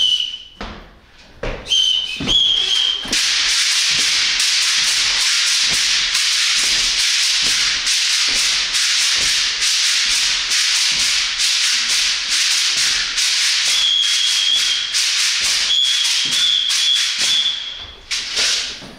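Agbê, a gourd shaker wrapped in a net of beads, shaken in a steady maracatu rhythm: a loud pulsing rattling hiss of beads against the gourd that begins about three seconds in and stops about a second before the end. A thin high steady tone sounds briefly about two seconds in and again near the end.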